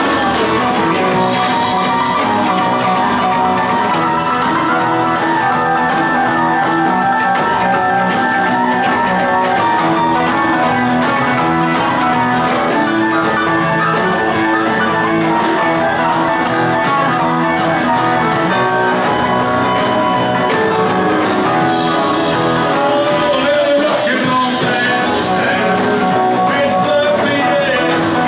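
Live rock and roll band playing with electric guitars, drums and keyboard.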